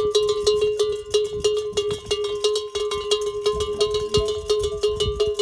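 Camel bells clanking rapidly and irregularly, several strikes a second, over a steady metallic ringing tone that carries on between strikes.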